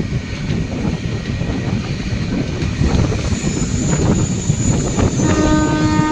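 Passenger train running with a steady rumble of wheels and carriages. About five seconds in, a train horn starts a long, steady blast.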